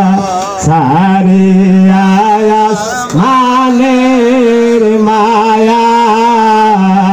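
A man singing a Bengali naat, a devotional song in praise of the Prophet, into a handheld microphone. He holds long notes with wavering ornaments, and his voice swoops down and breaks briefly twice, about a second in and near the middle.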